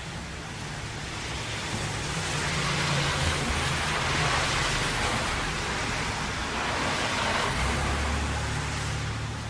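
Traffic on a wet road in rain: steady tyre hiss and spray under the rain, with a low engine hum beneath. The hiss swells louder through the middle, as vehicles pass, and eases toward the end.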